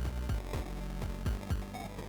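Electronic pop loop with a steady kick-drum beat playing through a GarageBand Remix FX distortion effect that sounds like an electric current and gives the whole track a scratchy edge.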